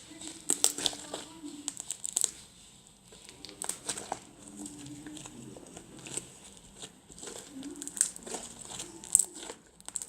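Sticky borax-activated glue slime being squeezed and stretched by hand, giving irregular wet clicks, pops and crackles.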